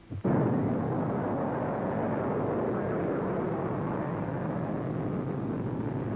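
Rocket engines of a Mercury launch vehicle at liftoff: a loud, rushing rumble that comes in suddenly just after the start and holds nearly steady, easing off only a little.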